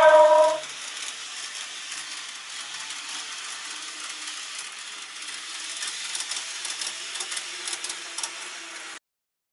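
A loud steady horn-like tone ends about half a second in. A model railway train then runs on the layout's track with a steady whirring hiss, with a run of light clicks near the end, before the sound cuts off suddenly.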